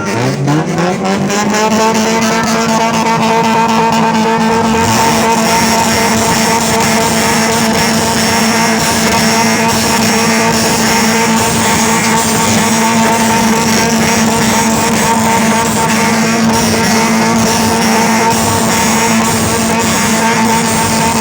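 Honda Civic engine revved up to high rpm at full throttle in the first couple of seconds, then held flat out at a steady high pitch.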